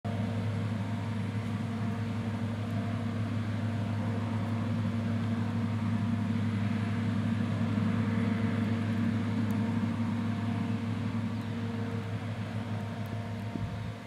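New Holland CR8090 twin-rotor combine harvester running under load while cutting wheat: a steady, low mechanical drone of the diesel engine and threshing machinery.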